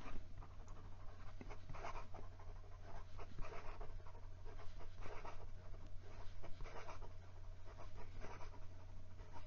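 Stiff steel medium nib of a Wing Sung 670 fountain pen scratching faintly across notebook paper in quick cursive strokes, with short pauses between words. The nib runs wet and smooth with a hint of feedback, and skips on a couple of downstrokes, which the writer puts down to baby's bottom on the nib.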